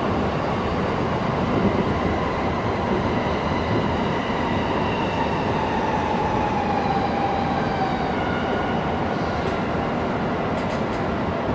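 Running noise inside an electric commuter train car: a steady rumble of wheels on rails, with the traction motors' whine slowly falling in pitch as the train slows.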